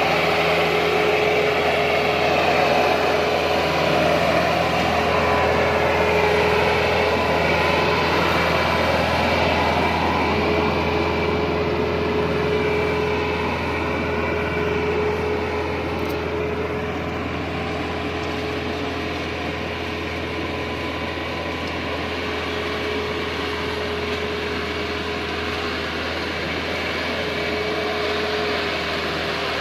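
Massey Ferguson 375 tractor's four-cylinder diesel engine running steadily under load, pulling a fully loaded trolley through a field. The sound grows slightly fainter in the second half as the tractor moves away.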